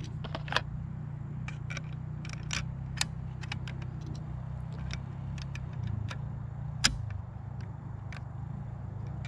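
Metallic clicks and clinks of .308 cartridges being handled and loaded into the action of a Remington bolt-action rifle, with the loudest clicks about half a second in and near seven seconds in. A steady low hum runs underneath.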